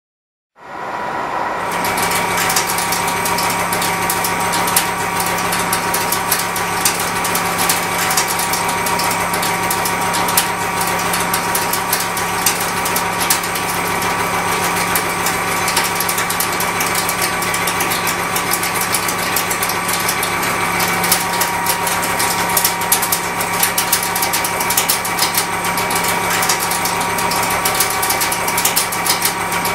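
Seco 335.25 disc milling cutter, 125 mm across, face milling a block of C45 carbon steel: a steady cutting hum with several held pitched tones and a dense crackle of chips breaking off. It starts about half a second in.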